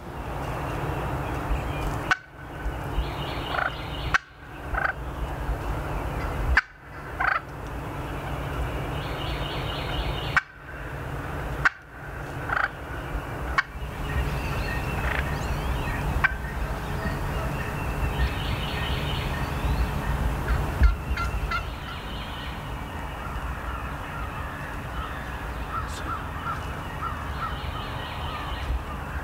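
Wild Osceola turkey gobbling, several separate bouts of gobbles repeating through the stretch.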